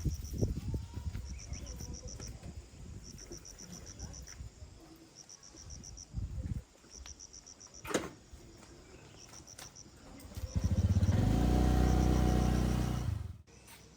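Insects chirping outdoors in short, evenly pulsed trills that repeat every couple of seconds. Near the end a loud, low, steady hum lasts about three seconds and then cuts off suddenly.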